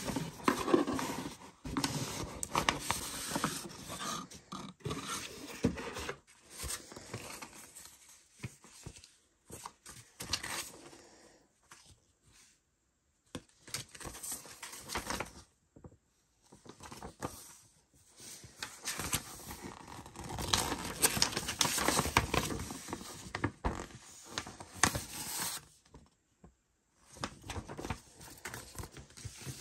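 Cardboard packaging and paper leaflets handled by hand: rustling, scraping and sliding in irregular bursts, with a few short pauses.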